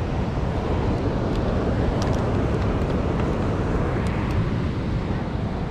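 Steady low rumble of wind on the microphone over the sound of breaking surf.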